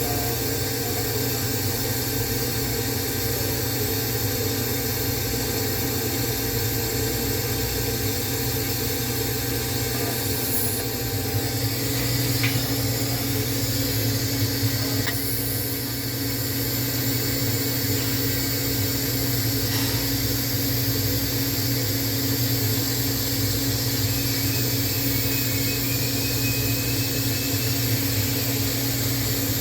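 TIG welding on 304L stainless steel: a steady hiss with a constant low hum from the welding setup, dipping briefly about halfway through.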